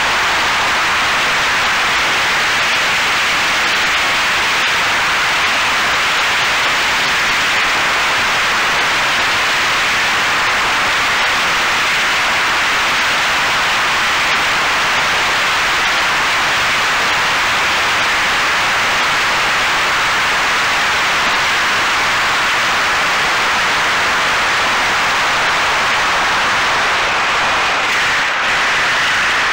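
Steady loud rushing hiss of airflow and propellers picked up by the onboard camera of a radio-controlled OV-10A Bronco model gliding in on its landing approach.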